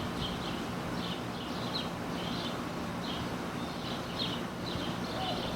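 Outdoor ambience with short high chirps in quick clusters of two or three, repeating about twice a second, over a faint steady low hum.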